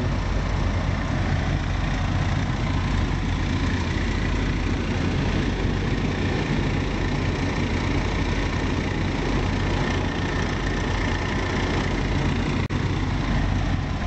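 Motorhome engine idling steadily while the Hadley Puffy air horn compressor runs, pumping up the horn's air tank with the pressure still rising.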